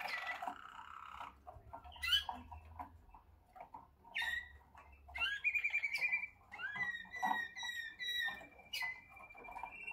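Malinois Waterslager song canary singing in separate phrases with pauses between them: a fast trill about five seconds in, then a run of repeated falling notes over a held whistle in the second half.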